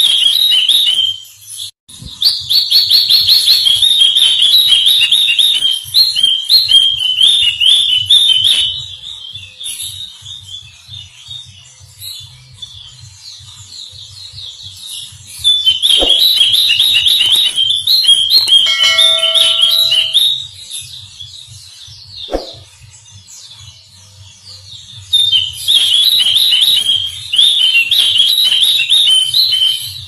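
A small caged songbird singing in rapid, high chirping phrases, coming in four loud bouts of a few seconds each with quieter spells of softer twittering between.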